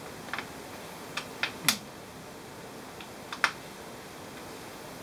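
Small sharp clicks and taps of plastic and metal parts being handled while an HP G60 laptop is reassembled, about half a dozen scattered through, the loudest a little over one and a half seconds in, over a steady faint hiss.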